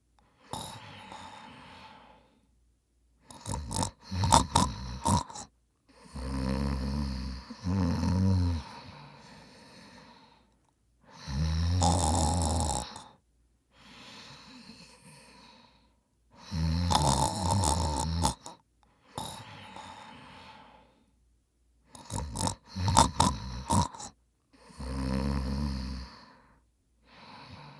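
A man snoring in his sleep: loud, low snores every few seconds, some choppy and fluttering, each followed by a quieter, hissing breath.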